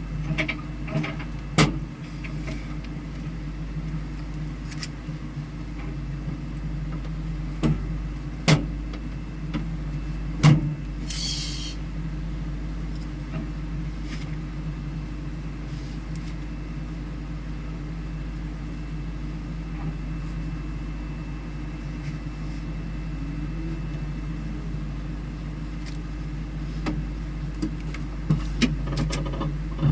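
A vehicle engine running steadily at a constant pitch, with no revving, and a few sharp clicks and knocks; a short hiss sounds about eleven seconds in.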